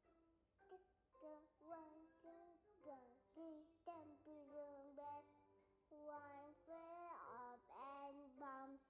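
Faint background song: a high singing voice carrying a melody in short phrases, with a swoop down and back up in pitch near the end.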